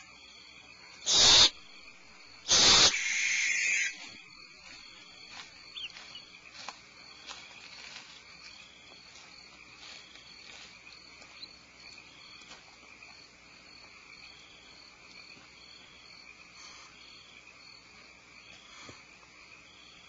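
Barn owl giving two harsh, hissing screeches: a short one about a second in and a longer one near three seconds in. Afterwards only a faint steady high chirping and a few light ticks remain.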